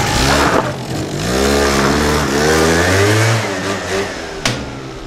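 Motor scooter engine revving as it pulls away, its pitch rising twice before fading out. A single sharp click comes near the end.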